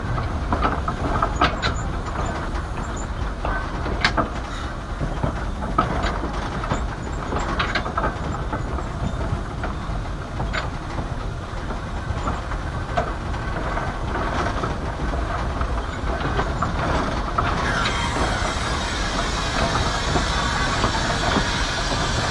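Small 0-4-0T saddle-tank steam train running, a steady rumble with irregular clicks and knocks from the wheels and cars. About three-quarters of the way in, a hiss of steam rises and carries on.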